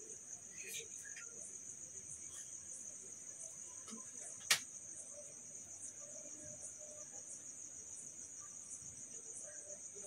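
Steady high-pitched chirring of crickets, with faint snips of scissors cutting cloth and a single sharp click about four and a half seconds in.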